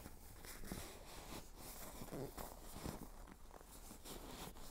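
Faint, irregular rustling and rubbing of a seat cover as hands push its flap down into the gap between the seat cushion and backrest.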